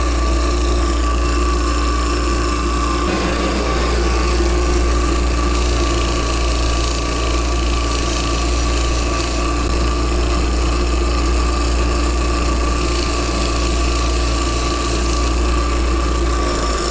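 Small bench belt sander running steadily while the metal sole of a golf club head is ground against its belt, finishing a bore-through shaft end flush with the sole.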